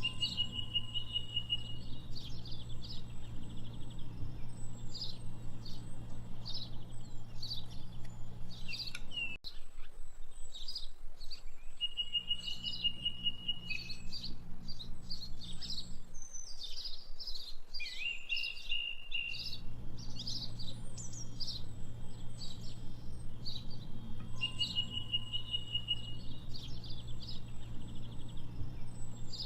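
Several birds chirping and singing in quick short calls, with a high trill that comes back about every twelve seconds. A low steady hum runs underneath and drops out twice for a few seconds.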